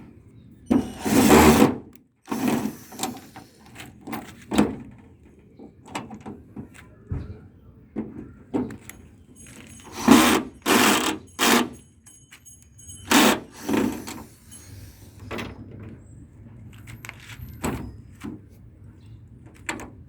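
A small motorised hand tool run in short bursts of about a second each, with clicks and knocks of handling between.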